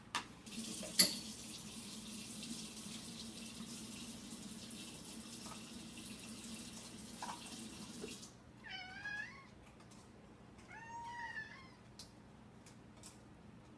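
A water tap runs steadily for about eight seconds and then shuts off, with a sharp knock about a second in. After it, a cat meows twice.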